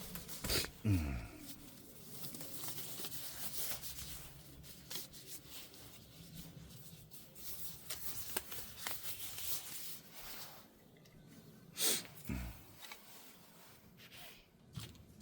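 A glove being pulled on and hands handling small parts: rustling and crinkling with scattered light clicks, and a sharper knock about twelve seconds in.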